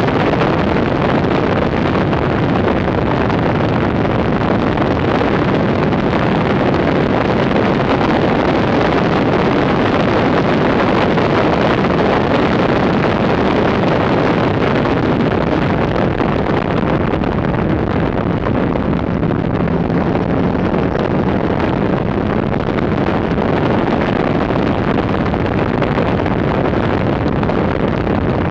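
Wind buffeting a camera microphone mounted on the outside of a BMW E46 at track speed, mixed with tyre and road noise. The sound is loud and steady throughout, and the engine note is largely buried under it.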